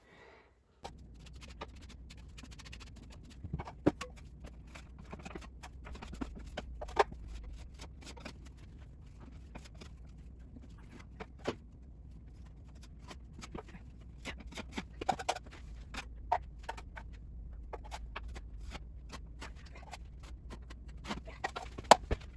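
Irregular small clicks, taps and light scrapes of hand work over a steady low hum that sets in abruptly about a second in.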